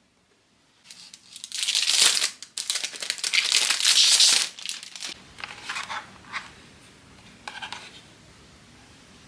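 Packaging being handled and unwrapped, crinkling loudly for a few seconds, then in smaller rustles.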